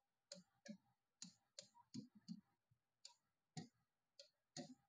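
Faint, irregular tapping, about a dozen light taps, from fingertips typing on the on-screen keyboard of a large touchscreen display.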